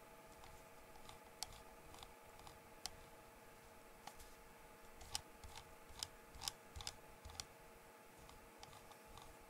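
Faint, irregular clicking of computer controls, coming more often in the middle, over a steady faint hum.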